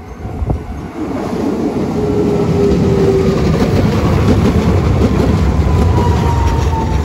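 Hiroden 'Green Liner' articulated tram running past at close range: the rumble of wheels on rail grows over the first couple of seconds and then stays loud, with a brief steady tone early on and a motor tone that slowly falls in pitch through the second half.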